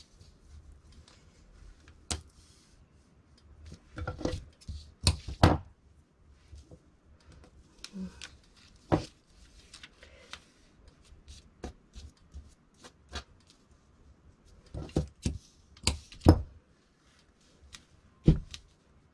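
Irregular clicks, taps and light rustling from hand thread tracing (tailor's tacks) through jacket fabric under a paper pattern, with tailor's shears and pattern weights handled on the cutting table. The loudest are a couple of sharp double clicks about five seconds in and again around sixteen seconds.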